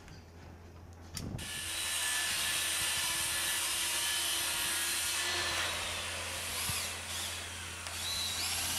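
Cordless drill driving galvanized deck screws through an OSB spacer board into the wooden subfloor. The motor starts about a second in and runs for several seconds, dips briefly and runs again near the end.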